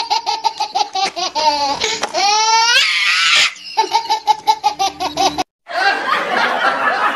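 Laugh-track sound effect: high-pitched laughter in rapid, evenly repeated 'ha-ha' pulses, climbing in pitch two to three seconds in. After a sudden cut about five and a half seconds in, it gives way to a denser sound of many people laughing.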